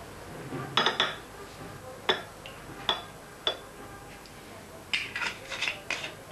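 Dishes and cutlery clinking: a few separate sharp clinks and knocks, then a quicker run of them near the end.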